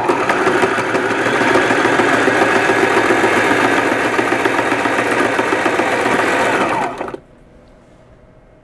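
Sewing machine running at speed, stitching through two layers of fabric, then stopping abruptly about seven seconds in.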